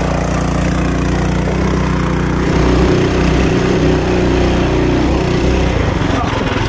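Mega Moto 212 mini bike's stock Tillotson 212 single-cylinder four-stroke engine running at full throttle as the bike climbs a loose, rocky hill, a steady engine note with deep rumble.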